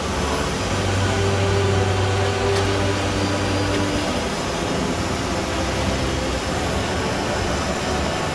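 ATR 72 turboprop heard from inside the cockpit while taxiing: a steady engine and propeller drone mixed with ventilation noise. A low hum swells about a second in and eases off around four seconds.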